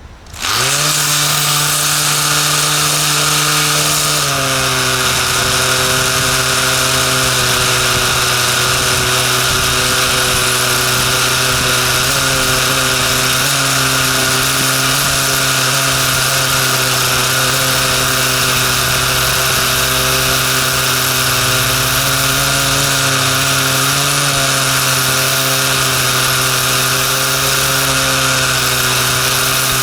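Andis hair dryer running with its shell stripped off: the small motor and fan spin up fast, then run with a steady whine over a rush of air. About four seconds in, the pitch drops a step and then holds steady.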